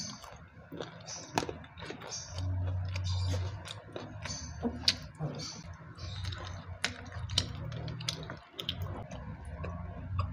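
A person chewing food close to the microphone, with scattered sharp clicks and small crunches, and a steady low hum underneath.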